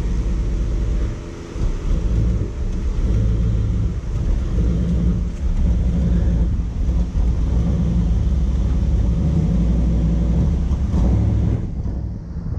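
1994 Chevrolet Camaro Z28's 5.7-litre V8 running under throttle, its revs rising and falling, as the driver tries to drive the car out where a tire is stuck. The engine sound dips briefly about a second in.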